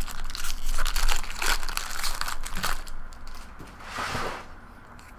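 Baseball trading cards being handled and flipped through by hand: quick rustles and light clicks as cards slide over one another, with a longer swish about four seconds in, then it goes quieter near the end.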